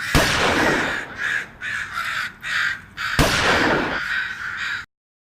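Crows cawing, a harsh call repeated about twice a second, with two louder sudden sounds about three seconds apart.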